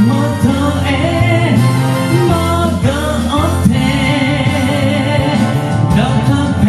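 A man singing a 1970s Japanese pop ballad with vibrato over a karaoke backing track.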